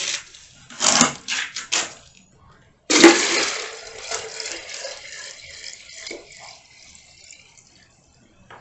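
Collected sprinkler water being poured into a measuring container: a sudden gush about three seconds in that trails off over the next few seconds, after a few short handling sounds.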